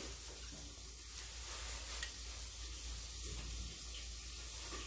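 A metal spoon scoops balut out of its cracked duck-egg shell, with a faint light click about two seconds in, over a steady hiss and low hum.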